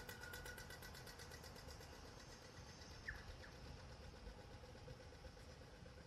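Near silence: a faint, steady low outdoor rumble, with two short, high falling chirps about three seconds in.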